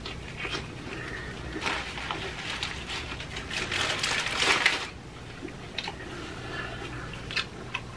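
Chewing a mouthful of sandwich wrap while paper sandwich wrappers crinkle and rustle as they are handled, loudest between about three and a half and five seconds in, with a few short crackles later.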